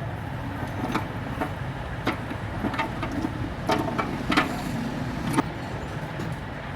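Short metallic clinks and knocks of a steel gear being slid and seated onto a tractor gearbox main shaft, about eight of them at uneven intervals, over a steady low background hum.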